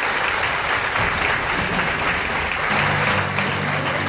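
Audience applauding, with music coming in under the clapping about two-thirds of the way through as low, sustained notes.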